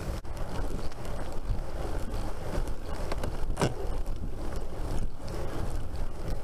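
Rolling and wind noise from a bike-mounted camera on a moving bicycle towing a child trailer over a paved path: a steady rumble with wind buffeting the microphone. There is a single sharp knock about three and a half seconds in.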